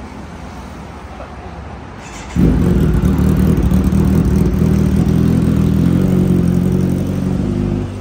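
Kawasaki Z1000R inline-four engine bursting into life about two seconds in through aftermarket slip-on exhausts, then running loud and steady at a fast idle for about five seconds before dropping off near the end.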